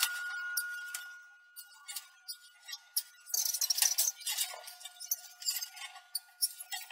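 Steel rule and square being set down and slid over a sheet of 16-gauge steel: light metallic clinks, taps and scrapes, with a longer scrape a little over three seconds in. A faint steady high tone sits underneath.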